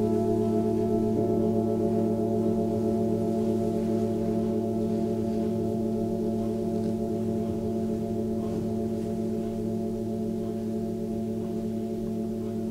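Several seven-metal Tibetan singing bowls ringing together in long overlapping tones, some pulsing slowly as their pitches beat against each other. Another bowl's higher tone joins about a second in, and the whole sound slowly fades.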